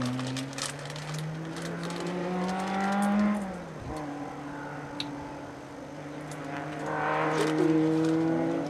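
Hill-climb competition car's engine accelerating up the course. Its pitch rises for about three seconds, drops sharply at a gear change about three and a half seconds in, then pulls on more steadily.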